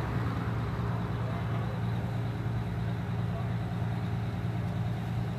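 Engines of a line of emergency vehicles, fire truck and police pickups among them, idling together in a steady low rumble.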